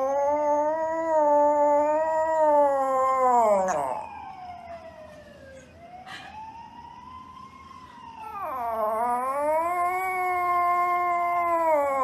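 Small poodle howling in long, wavering, siren-like howls: one long howl at the start, a fainter one in the middle, and another long one starting about eight seconds in.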